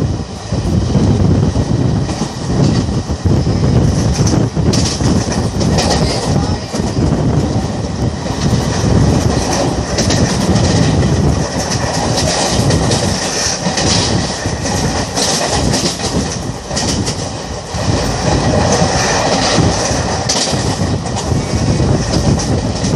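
An Indian Railways passenger coach running along the track: a steady rumble of its wheels on the rails, broken by frequent irregular clacks over the rail joints.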